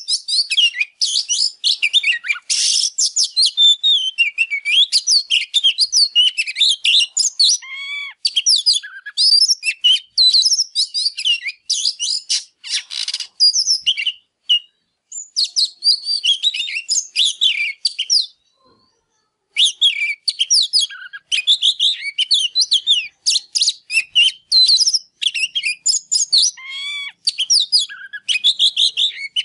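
Oriental magpie-robin singing a long, fast, varied run of whistles, trills and chirps, with a pause of about a second two-thirds of the way through. The song is typical of a male in full breeding fire ('căng lửa'), singing while he displays.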